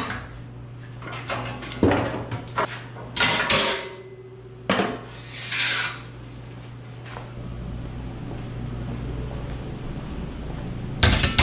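Clunks and knocks of an air tank and compressors being handled and set in place on a truck frame: a handful of separate knocks and clatters over the first six seconds, then only a low steady hum. Music comes in at the very end.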